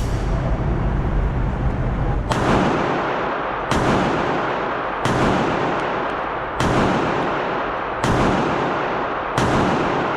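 Six gunshots fired at an even pace, about one every second and a half, starting about two seconds in. Each shot leaves a long ringing tail.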